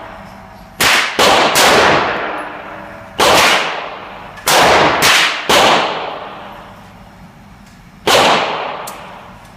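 Seven loud shots from a Smith & Wesson M&P AR-15 rifle, fired one at a time: three in quick succession about a second in, then singly at uneven gaps. Each shot rings out with a long fading echo.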